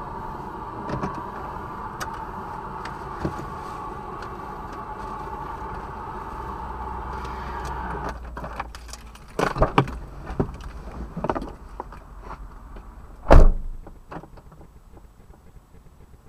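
Steady running noise inside a Smart Fortwo cuts off about eight seconds in. Scattered clicks and knocks follow, then one loud thump like a car door shutting near the end.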